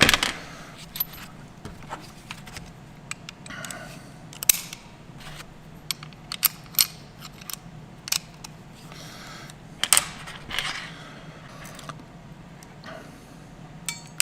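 Irregular metallic clicks and clinks as a hand crimping tool and its quick-change jaws are handled and fitted, with some hand rustling between them.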